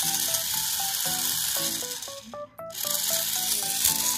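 Mini 4WD car's small electric motor and plastic gears running with the wheels spinning free in the hand, a high buzzing whir that cuts out briefly a little past halfway and starts again; the owner judges the run neither very smooth nor very fast. Background music with a simple melody plays along.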